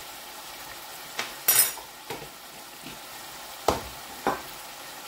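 Spoons and spice containers being handled: about five short knocks and clinks, the brightest a ringing metallic clink about one and a half seconds in and another sharp knock near the end. A steady low hiss runs underneath.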